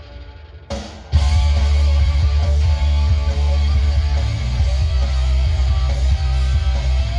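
Hard rock recording with electric guitars, bass and drums. It opens on a brief, much quieter break, and the full band comes back in about a second in.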